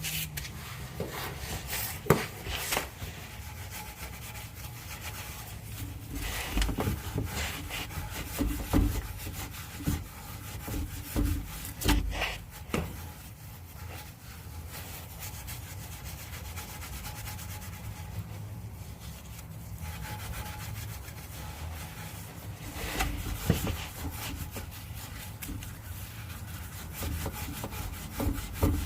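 Rusty steel exhaust pipe being scrubbed by hand with abrasives, rubbing back and forth in uneven spells to clear surface rust before painting. There is a sharp knock about two seconds in.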